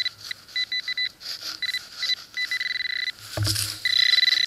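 Metal detector's target tone: a string of short high beeps, all on one pitch, then from about four seconds in a steady unbroken tone. A dull thump comes just before the steady tone. The tone signals a buried metal target reading in the copper-penny range.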